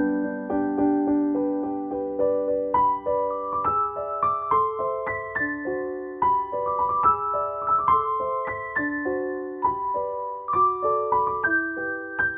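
Background piano music: a gentle melody of single notes, struck about two a second and stepping up and down in pitch.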